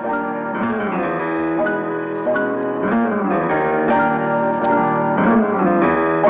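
Background music led by piano, with notes struck every half second or so over sustained chords.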